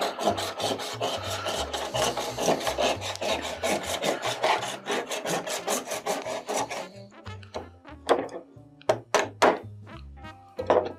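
Small handsaw rasping back and forth through a block of clear ice in quick strokes, scoring it for splitting. After about seven seconds the sawing stops and a wooden mallet knocks a few times, sharp and separate.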